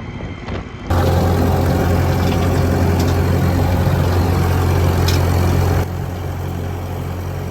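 Case 730 tractor engine running steadily under load, a steady low drone that starts abruptly about a second in and drops somewhat in level near the end.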